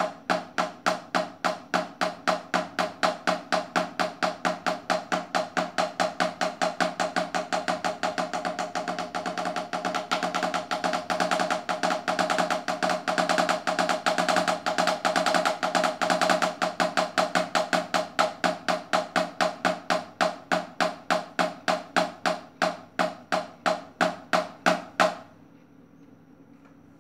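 Wooden drumsticks striking an Octapad practice board of black pads on a wooden base, playing the sticking pattern LRLL RLRL as a steady stream of even strokes. The strokes start slow, speed up to a fast, roll-like run around the middle, then slow down again and stop about two seconds before the end.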